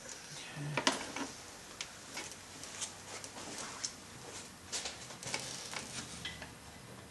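Scattered clicks and light knocks of hands and tools working on plastic parts in a car's engine bay, with the sharpest click about a second in.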